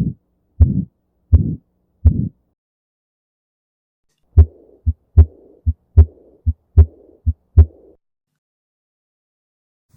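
Recorded heart sounds heard through a stethoscope. First come four dull heartbeats at about eighty a minute. After a two-second gap come faster lub-dub pairs with a murmur hissing steadily between them, which stop about eight seconds in.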